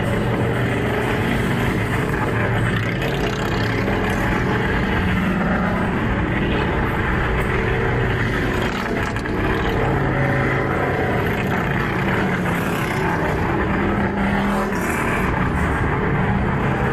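Loud, continuous running of several motor vehicle engines, with pitches rising and falling as they rev.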